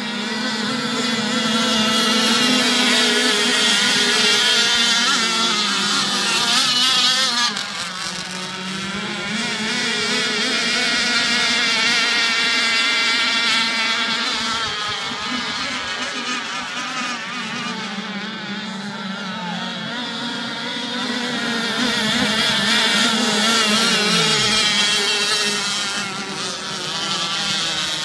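Two-stroke RC racing boat engines buzzing at high revs, several boats at once, swelling and fading as they race past, loudest in three long stretches. The sound drops off sharply about seven and a half seconds in before building again.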